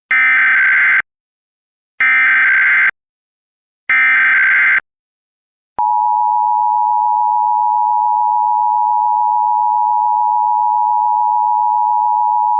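Emergency Alert System Required Monthly Test: three one-second bursts of the SAME digital header, about two seconds apart, then, just under six seconds in, the steady two-tone EAS attention signal (853 and 960 Hz) starts and holds.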